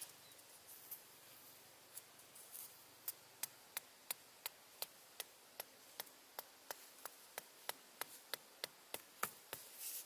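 Sharp taps of a hand-held tool driving a small wooden peg into sandy ground. A few scattered taps come first, then a steady run of about three taps a second from about three seconds in.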